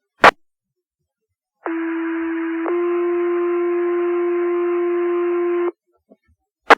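Two-tone sequential paging tones on the fire dispatch radio channel: a steady low tone for about a second, then a slightly lower tone held for about three seconds, alerting the volunteer station's pagers ahead of a page. Sharp radio key-up clicks come shortly before the tones and near the end.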